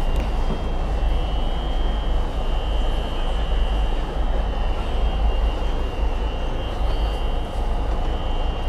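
Passenger ferry's engines droning steadily, heard inside the cabin as a deep continuous rumble, with a faint steady high-pitched whine over it.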